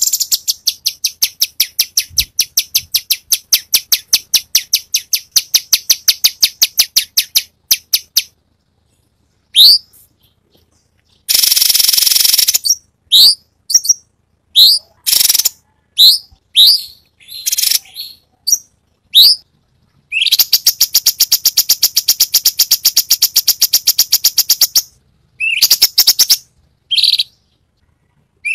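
A cucak cungkok songbird singing its varied 'tembakan' song. It opens with a long, fast run of repeated notes, about six a second. After a short pause come single upward-sweeping whistles mixed with harsh, buzzy bursts, then another long run of fast repeated notes and a few short calls near the end.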